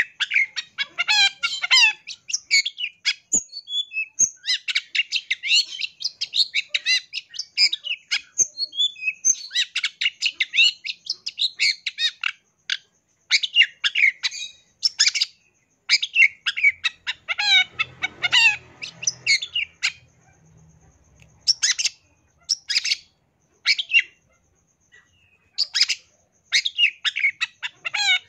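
Long-tailed shrike (cendet) singing a fast, varied song of rapid chirps and trills, in bursts with short pauses, filled with mimicked calls of other birds. A faint low sound sits under the song about two-thirds of the way through.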